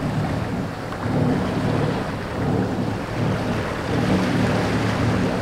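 Wind buffeting the microphone over the rush of water along the hull of a sailing trimaran running downwind, a steady rumbling noise.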